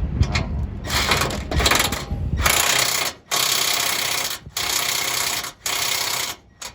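Cordless impact wrench hammering nuts tight on new suspension parts, in a run of bursts with short pauses between them.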